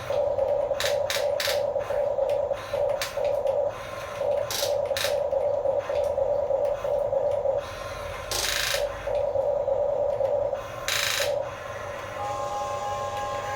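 Small electric gear motors of radio-controlled toy construction vehicles whirring in stop-start runs, with clicks and two short scraping bursts; near the end a steady higher whine joins in.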